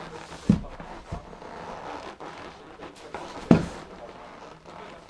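Lib Tech TRS snowboard, ridden in bindings, thumping down onto a carpeted floor twice, about half a second and three and a half seconds in, as the board is flexed, with a lighter knock just after the first thump.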